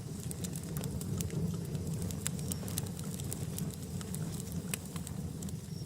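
Wood campfire burning, with a steady low rumble of flames and frequent sharp crackles and pops from the burning firewood.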